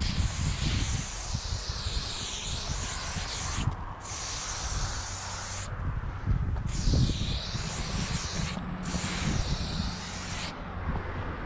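Aerosol spray paint can hissing as black lines are sprayed onto a cinderblock wall, in five long bursts with short breaks between them; the hiss wavers up and down in pitch as the can moves. A low rumble runs underneath.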